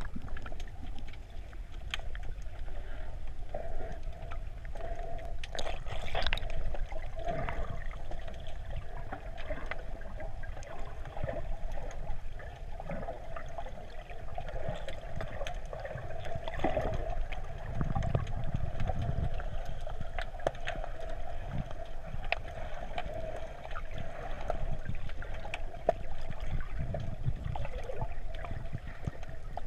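Muffled underwater sound picked up through a GoPro Hero3 Black's waterproof housing: a low rumble of moving water with a steady hum and scattered sharp clicks.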